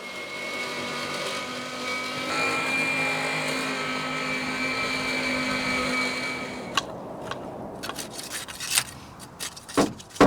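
A small motor runs steadily for about seven seconds, then cuts out, followed by a few scattered knocks and clicks.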